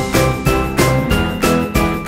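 Background music with a steady beat, about three beats a second, and short high melody notes.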